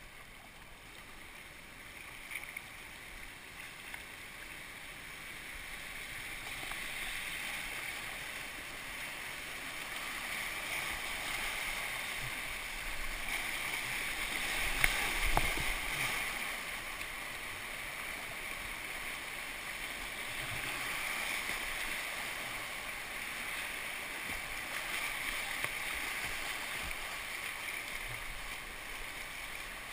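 River rapids rushing and splashing around a kayak as it is paddled downstream through white water. The rushing builds over the first fifteen seconds or so, with one sharp splash about fifteen seconds in, then holds steady.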